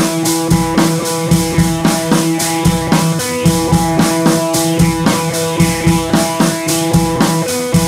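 Background music: a drum kit keeping a steady beat under held instrumental notes.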